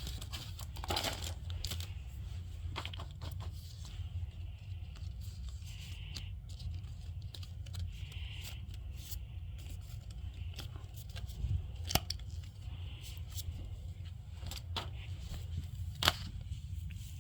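Packaging being handled and torn open, with scattered small clicks and taps, two of them sharper about twelve and sixteen seconds in, over a steady low hum.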